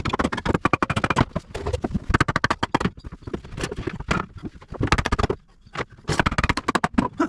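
Rapid clattering impacts from renovation demolition work, in four bursts. The first burst runs about three seconds and the next three are shorter, with brief pauses between them.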